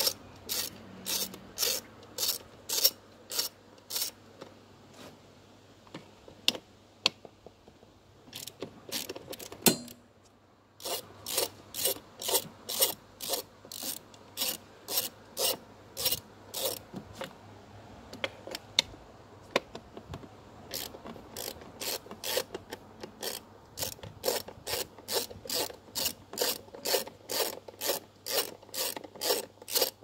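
Hand socket ratchet clicking as it is swung back and forth to work a bolt, about two clicks a second, in runs with a couple of short pauses.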